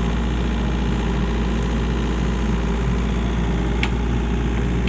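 Excavator's diesel engine running steadily, with one brief click about four seconds in.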